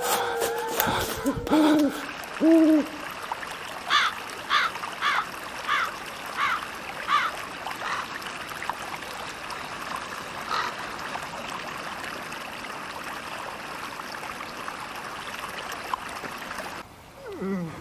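An owl hooting twice about two seconds in, followed by a run of about seven quick, falling higher-pitched bird calls, over a steady faint hiss of woodland ambience.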